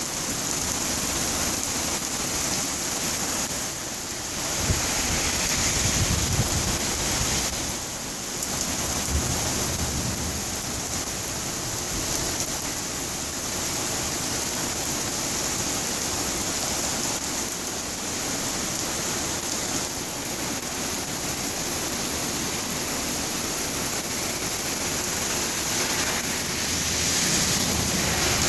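Heavy rain pouring down in a steady hiss, with a couple of low rumbles swelling up in the first third.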